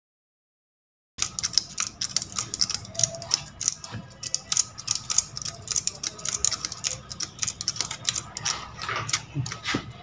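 Enamelled copper wire being wound by hand into the paper-lined slots of a vacuum cleaner motor armature: a rapid, irregular ticking and rustling as the wire is pulled round and rubs over the paper slot insulators. It starts about a second in.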